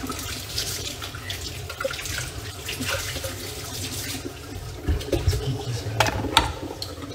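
Water running steadily, with a few light knocks in the second half.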